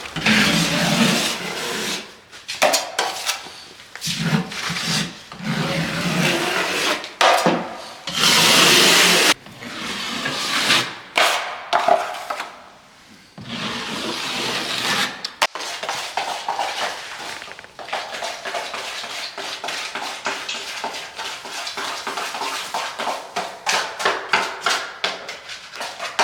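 Drywall tools scraping and rubbing in irregular strokes of varying length, with a longer, louder scrape about eight seconds in.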